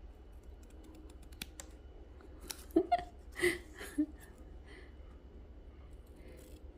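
Scissors snipping the points of a woven pandanus-leaf star: a scatter of small clicks and snips, with a few louder short sounds about three seconds in.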